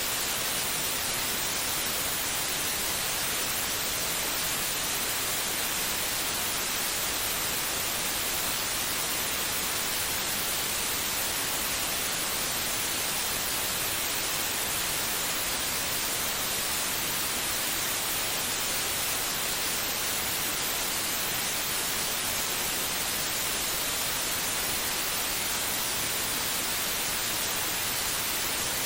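Steady white noise: an even hiss with no rhythm, pulse or change.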